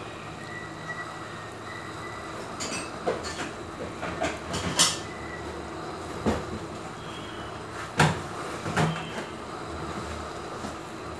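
Chicken and vegetables simmering in a metal baking tray on a gas stove burner: a steady low hiss and rumble with a few sharp knocks and pops, the loudest about five and eight seconds in.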